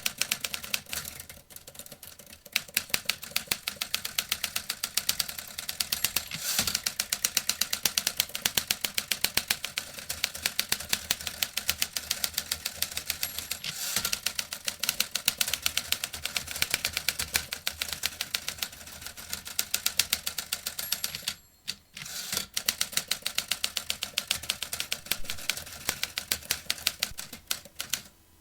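Vintage typewriter being typed on quickly and steadily, a dense run of key strikes clicking several times a second, with a brief pause about three-quarters of the way through.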